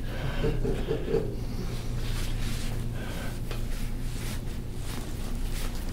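Quiet room with a steady low electrical hum, faint breathing and handling sounds while a foot is pulled on; no clear joint crack is heard.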